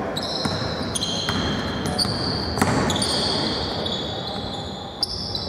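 Basketball game in play: a ball bouncing on the hardwood court with a few sharp knocks, and sneakers squealing on the floor again and again in short high-pitched squeaks over the hall's steady background noise.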